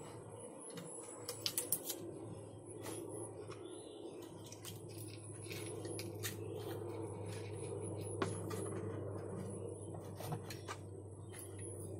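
Scattered light clicks and taps from hands handling a PVC pipe in a plastic basin of water, a cluster of them a second and a half in, over a steady low hum.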